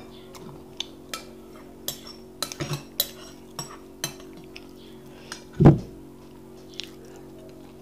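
Metal spoon scraping and clinking against a glass bowl as the last of the custard is scooped out. There are repeated sharp clicks, and a single louder knock about two-thirds of the way through as the bowl is set back down on the table.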